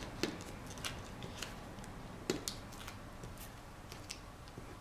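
Paper-handling sounds as cardstock pieces are pressed down and positioned with pop-up foam adhesive: soft rustling with a few scattered light clicks and taps.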